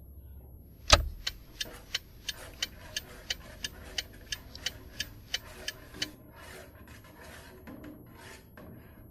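A sharp knock, then a run of evenly spaced clicks about three a second for some five seconds, then a few softer rustling sounds.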